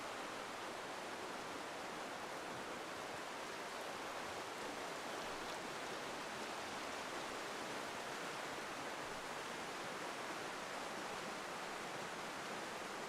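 Forest stream rushing over rocks and small cascades, a steady, even water noise with no breaks.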